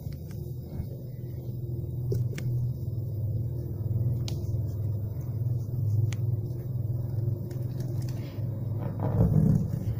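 A steady low rumble, with a few faint clicks and a brief louder swell near the end.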